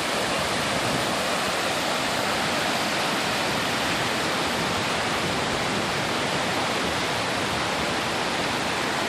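Floodwater rushing steadily down a small creek in flood, swollen far past its banks by water from a failed dam upstream.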